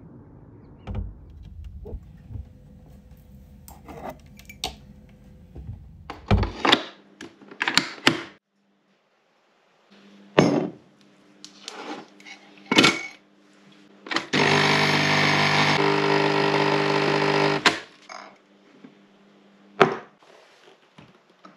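Kitchen sounds of a coffee being made: sharp clinks and knocks of a mug and spoon, and about three seconds of a small electric appliance humming steadily. Before that comes a few seconds of low, steady outdoor background noise.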